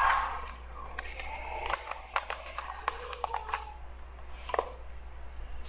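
A few scattered small clicks and taps over a steady low hum.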